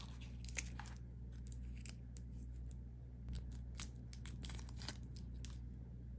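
A toothpick's small paper wrapper crinkling and tearing as the wooden toothpick is pulled out: a quick run of sharp little crackles and ticks that stops shortly before the end, over a faint steady low hum.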